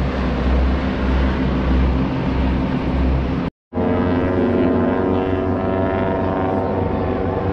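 Propeller airplanes of the AeroShell aerobatic team, North American T-6 Texans with radial engines, droning as the formation flies past. For the first half the drone is mixed into a low rumbling noise. After a brief dropout near the middle, the many-toned engine drone stands out clearly, its pitch sinking slightly as the airplanes fly away.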